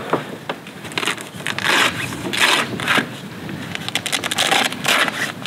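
Perception Splash Kayak Crate, a fabric-sided crate, being folded flat by hand: a run of irregular crunches, crinkles and scrapes as its panels give way.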